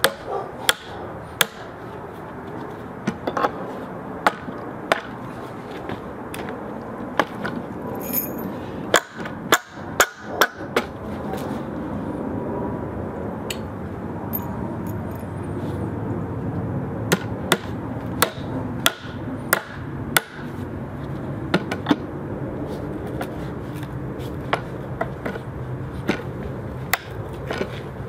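Martinez M1 15-oz titanium framing hammer driving nails into a wooden beam: sharp single strikes on the nail heads, coming in irregular runs of several blows with pauses between. A steady hiss of background noise runs under the blows.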